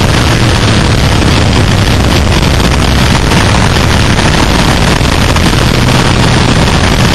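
Suzuki SV650's V-twin engine running hard at track speed, buried under a loud, steady rush of wind on the onboard camera's microphone.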